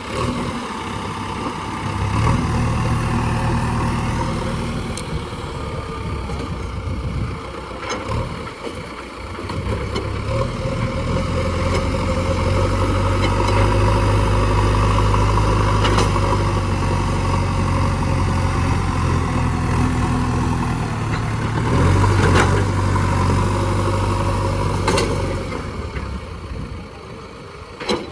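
Heavy diesel engine running at work, its load rising and falling, with a few sharp knocks.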